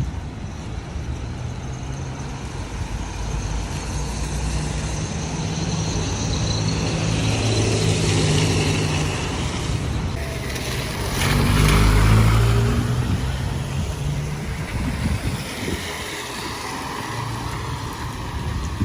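Motor traffic passing on a rain-wet street: engines running and tyres hissing on the wet road, swelling loudest as a vehicle goes by closest about twelve seconds in.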